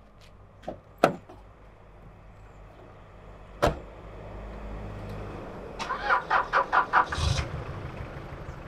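A station wagon's door clicks open, then shuts with one sharp knock a few seconds in. The engine is then cranked in a quick run of pulses and catches with a low rumble near the end.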